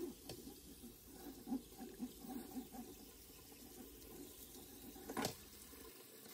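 Faint tap water trickling and splashing over soaked rice in an aluminium colander as the rice is rinsed, with small irregular splashes early on and one sharp knock about five seconds in.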